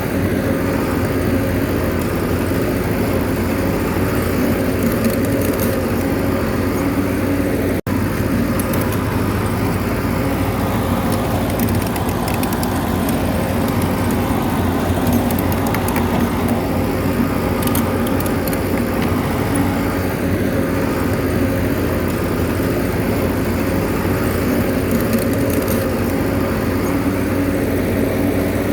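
Bulldozer's diesel engine running steadily, with a momentary gap about eight seconds in.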